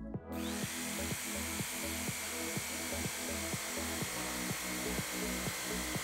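Electric jigsaw starting up just after the start and then cutting steadily through an acrylic sheet, a constant motor whine over the blade's rasp. Background music with a steady beat plays underneath.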